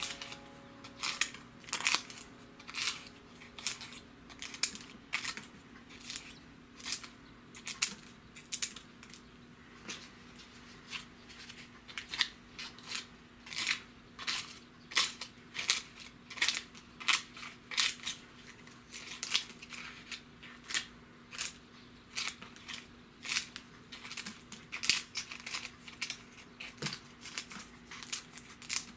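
Kitchen scissors snipping through tough loquat leaves, a crisp cut about once or twice a second, steadily throughout.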